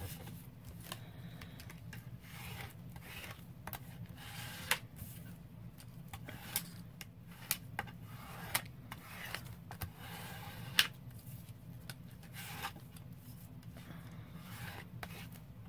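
Paper being handled, pressed and smoothed down by hand: soft rubbing and rustling with scattered light taps and clicks, over a faint steady hum.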